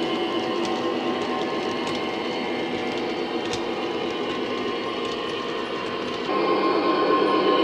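Diesel engine sound of a model DB class 232 locomotive from an ESU LokSound decoder through an EM1 speaker, running steadily under load as the model hauls its wagons, with a few faint clicks from the track. About six seconds in, the engine sound steps up louder, with a higher tone added.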